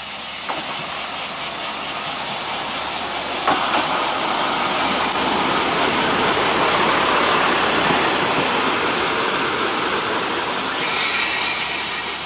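Hojo Railway Flower 2000 diesel railcar pulling in: its engine and wheels on the rails grow louder as it comes up and passes close by. Near the end there is a high brake squeal as it slows to a stop.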